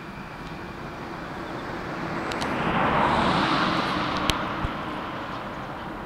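A car passes close by: its tyre and engine noise rises to a peak about three seconds in, then fades. A couple of sharp clicks come near the end.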